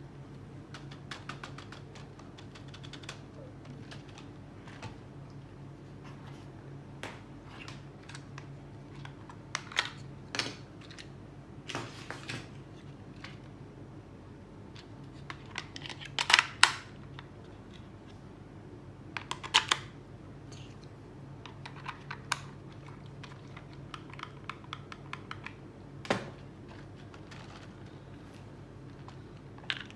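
Irregular clicks, taps and light rustles of small plastic objects being handled, over a faint steady low hum, with the loudest clatter about halfway through.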